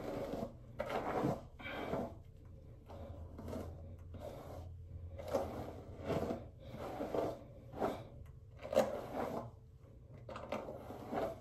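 A hairbrush drawn through long wig hair in short, uneven strokes, about one a second.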